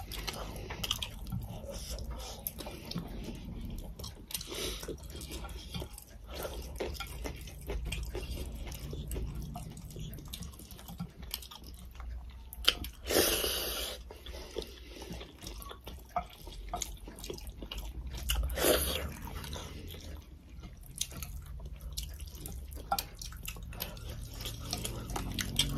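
Close-miked eating sounds of chicken curry and rice eaten by hand: chewing with many small wet mouth clicks and lip smacks. Two louder, longer wet sounds stand out, about halfway through and again about two-thirds of the way in.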